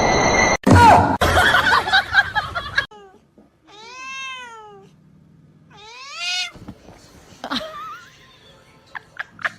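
A cat meowing twice, two long drawn-out meows that rise and fall, about two seconds apart. They follow a loud, noisy jumble of sound in the first few seconds.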